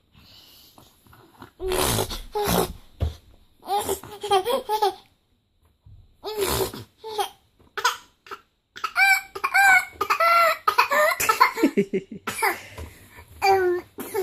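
An eight-month-old baby laughing in a string of short vocal bursts, the pitch sliding up and down.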